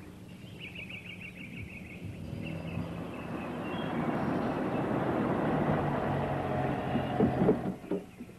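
A car driving up a dirt track, its engine and tyre noise on the rough ground growing louder as it approaches. It comes to a stop with a few short knocks near the end.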